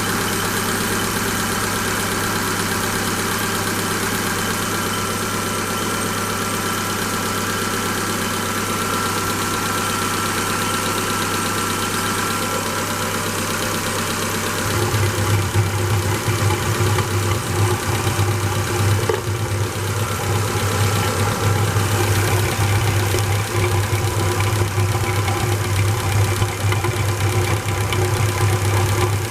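Car engine idling just after start-up, with a hydraulic-lifter stop-noise additive freshly added to the oil to quiet lifter tapping. The hum is steady and gets noticeably louder about halfway through.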